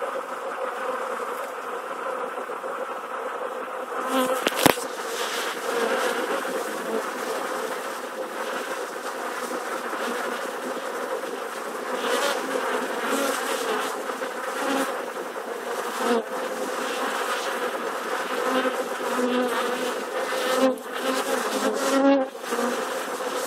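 A honeybee swarm buzzing: a steady, dense hum of thousands of bees that swells now and then, with one sharp click about five seconds in.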